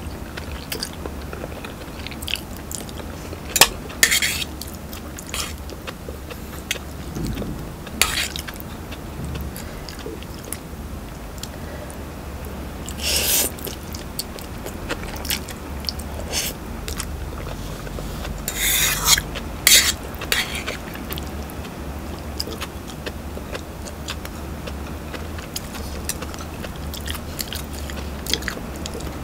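Close-up eating of Samyang spicy noodles: chewing and slurping, with a metal fork clicking and scraping against an aluminium pot, and a few louder slurps, the longest a little past halfway. A steady low hum runs underneath.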